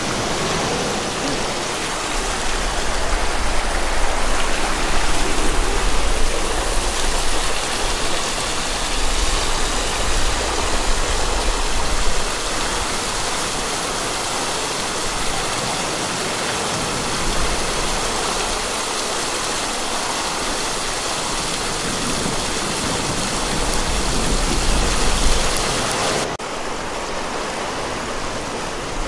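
Steady rush of water pouring down a wooden flume and spilling off the buckets of a wooden water wheel. About 26 seconds in it cuts to the softer, even flow of a river.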